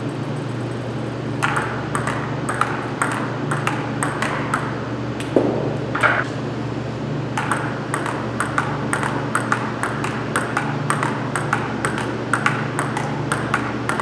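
Table tennis rally: the celluloid-type ball clicks sharply off paddles and table several times a second, starting about a second and a half in. A short squeak comes about five seconds in.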